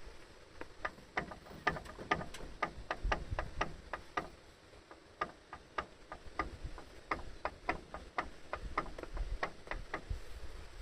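Rapid ticking from a Suzuki Jimny, about three sharp clicks a second with a short break about halfway through. It is the abnormal noise the owner is trying to trace.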